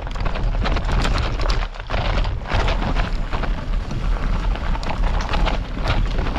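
Mountain bike rolling over rough, rocky trail: a dense, irregular clatter of tyres and rattling bike parts, over a steady rumble of wind buffeting the microphone.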